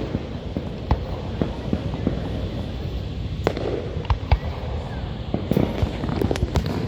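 Fireworks going off: an irregular run of sharp bangs and pops, with a cluster of quick cracks near the end, over a steady background rumble.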